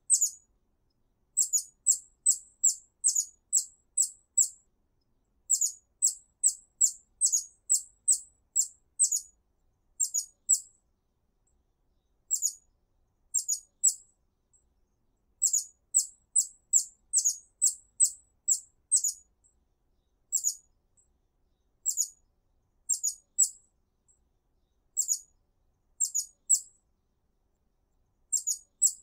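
Hummingbird giving thin, very high chip calls in runs of several notes, about three a second, with short pauses between the runs.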